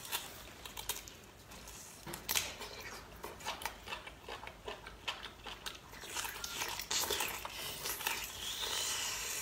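Close-up eating sounds: a person biting and chewing a chewy piece of braised meat, with wet mouth smacks and a run of small irregular clicks, a little louder in the second half.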